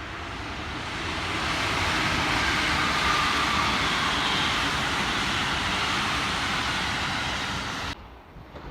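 A train passing at speed: a steady rushing rumble that builds over the first couple of seconds, holds, and cuts off suddenly near the end.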